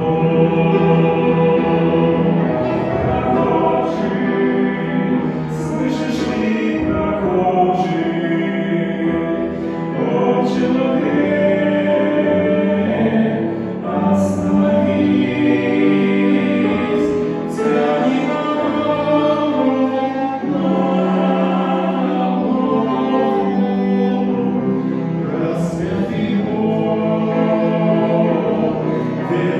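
Choir singing a Russian Christian hymn in long, sustained phrases.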